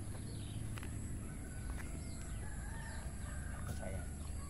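A rooster crowing once, one long call of about two seconds, over a steady low rumble.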